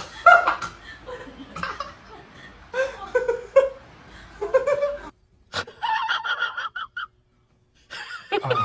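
A person laughing in short bursts, cutting off suddenly about five seconds in. A few short, high-pitched calls follow.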